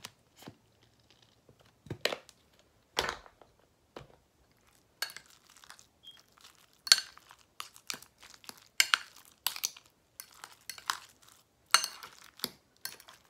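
Metal spoon and fork mashing and stirring guacamole in a glass bowl, scraping and clinking against the bowl. A few separate knocks in the first few seconds, then busier, quick scraping strokes from about five seconds in.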